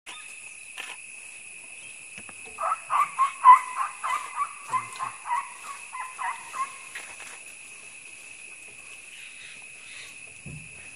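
An animal calling in a quick series of about fifteen short, similar notes, about three a second, loudest near the start and fading out. Under it runs a steady high insect drone.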